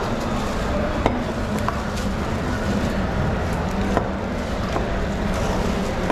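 A few sharp knocks of a knife chopping through skipjack tuna on a cutting board, over a steady background din with a low hum.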